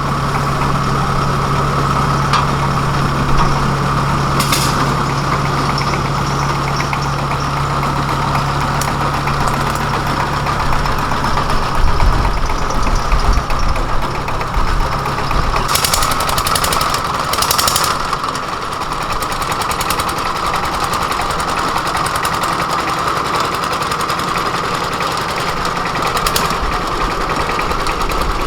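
Engine running steadily throughout, with a low hum that drops out a little past halfway, leaving a rougher low rumble. A few short rattles or knocks come on top of it.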